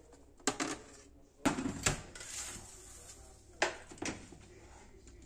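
Kitchenware clinking and knocking: about five sharp knocks, coming in pairs, about half a second, a second and a half and three and a half seconds in.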